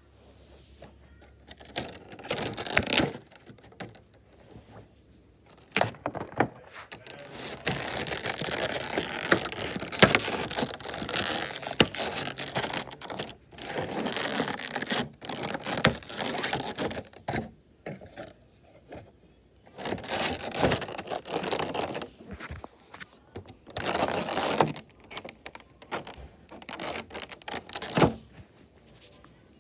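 Clear plastic packaging insert crinkling and clicking as it is handled with a vinyl figure. The sound comes in irregular bursts of rustling with sharp clicks and knocks, and short pauses between them.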